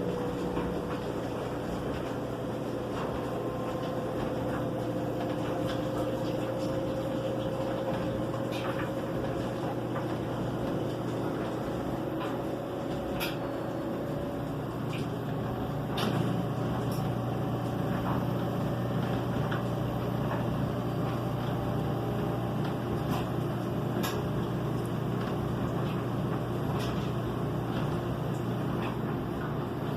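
LG front-load washing machine running in its spin stage: a steady motor hum with a whine that slowly rises in pitch over the first half, and scattered light clicks.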